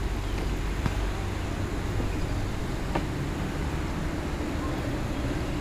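Wind buffeting the microphone: a steady low rumble under a constant hiss, with a couple of faint clicks about one and three seconds in.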